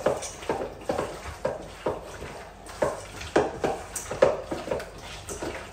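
Raw chicken pieces being mixed by hand with spice powders and vinegar in a bowl: wet mixing strokes at an even pace of about two a second, with a light knock of the bowl on some strokes.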